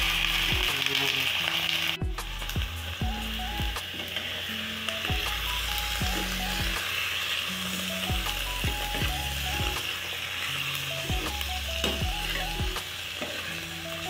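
Raw chicken pieces sizzling in hot oil in a non-stick wok as they start to fry, with a metal ladle stirring and turning them; the sizzle is louder for the first two seconds. Background music with a steady bass beat plays along.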